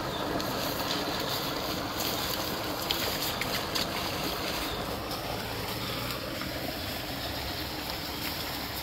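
Steady rushing of muddy floodwater draining through a concrete culvert pipe, with a faint tone that falls in pitch about halfway through.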